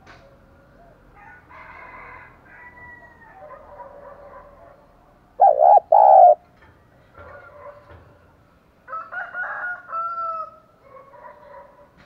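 Spotted dove giving its calling coo. Two loud, low coos come a little past the middle, then a quieter string of calls about three seconds later, with fainter calls in between.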